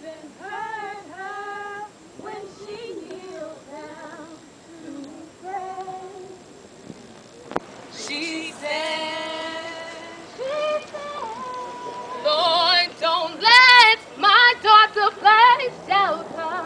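Women's voices singing unaccompanied. The singing is soft at first, then about halfway through it becomes much louder with long held notes. In the last few seconds it turns into quick, high, swooping notes. A single sharp click comes just before the loud part.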